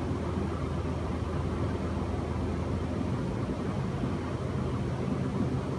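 Steady low background hum with a faint hiss, no speech.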